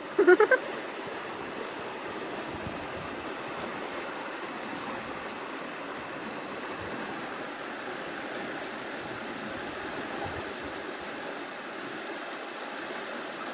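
Flowing water rushing steadily, a constant even hiss with no breaks.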